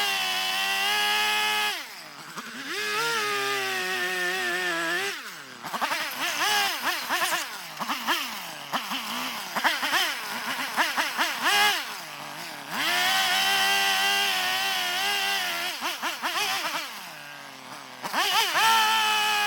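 Two-stroke chainsaw revving and cutting into eastern red cedar, its pitch jumping repeatedly between held high-speed stretches and lower running. Long steady high-speed pushes come at the start, in the middle and near the end, with quick throttle blips between them.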